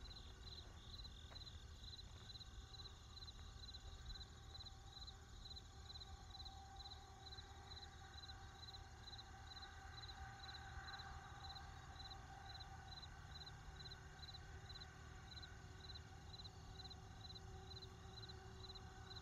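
Faint insect chirping: short high chirps repeating at an even pace, about two or three a second, over a low steady background rumble.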